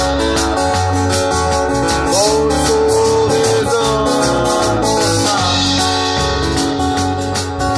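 Live blues band playing: acoustic and electric guitars with a drum kit, a lead line of bending, sliding notes over a steady cymbal beat and low pulse.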